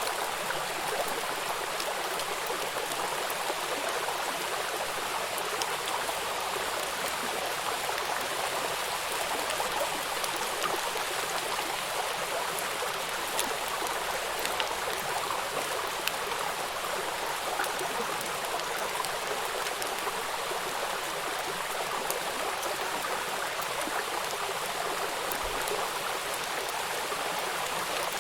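Running water flowing steadily, an even rush with no change in level.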